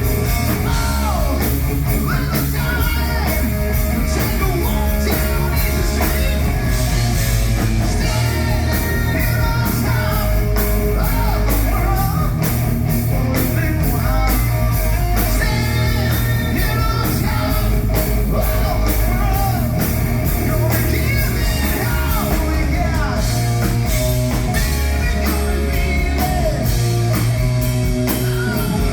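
Loud rock music: a band with singing, electric guitar and drums keeping a steady beat.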